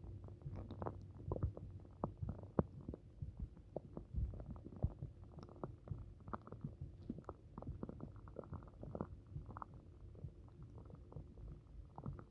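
Human stomach gurgling and rumbling: a quick, irregular run of short gurgles and pops, the bowel sounds of an upset stomach.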